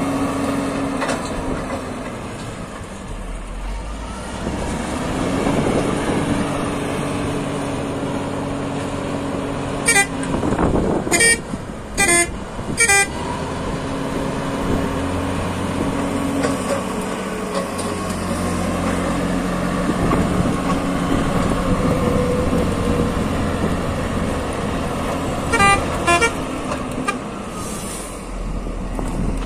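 Komatsu GD675 motor grader's diesel engine running steadily, its pitch and load shifting as the grader works the slope. A vehicle horn sounds four short toots about a third of the way in and two more later.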